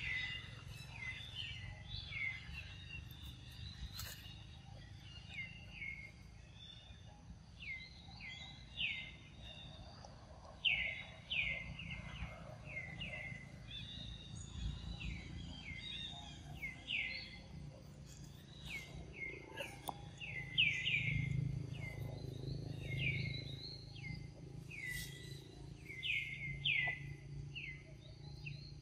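Birds chirping over and over, a dense string of short, quickly falling chirps, over a low outdoor rumble that swells about two-thirds of the way through.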